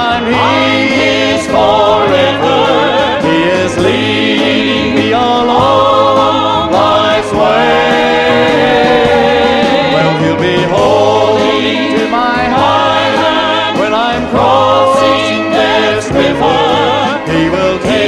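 Gospel vocal group singing in harmony, with vibrato on long held notes, over instrumental accompaniment.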